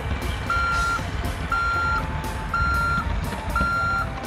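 Construction-machine reversing alarm beeping steadily, one half-second beep about once a second, over a constant low engine rumble.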